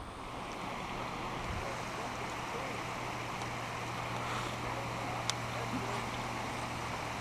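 Steady rushing of running creek water, with a low steady hum from about a second in and a single faint click about five seconds in.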